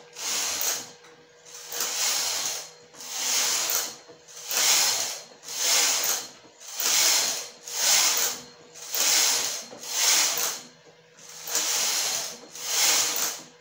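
Domestic knitting machine carriage pushed back and forth across the needle bed to knit rows, one pass about every second in a steady rhythm.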